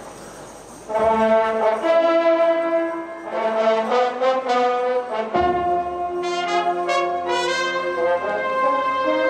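Children's and youth wind band striking up about a second in with loud, held brass chords that change every second or two.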